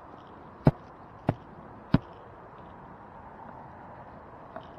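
Three sharp knocks, about two-thirds of a second apart, over the steady rush of flowing creek water.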